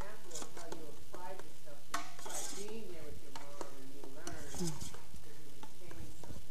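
Spoon stirring in a tall stainless steel pot of cooking food. It scrapes and clicks against the metal again and again over a faint sizzle from the pot.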